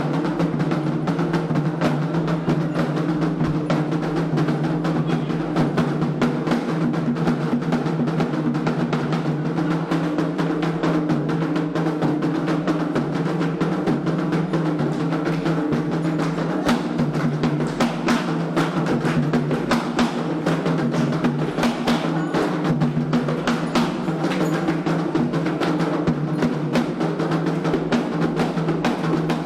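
Candomblé ritual drumming on atabaque hand drums, struck in a dense, continuous rhythm over a steady low hum.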